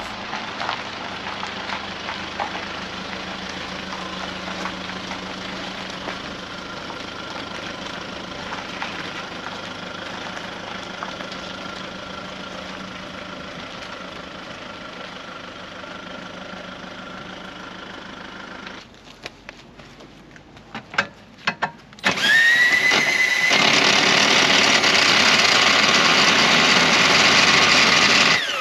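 A car engine runs steadily while towing a caravan. After a few clicks, a cordless drill starts about 22 seconds in, with a rising whine that levels into a loud steady whirr as it winds down the caravan's corner steadies.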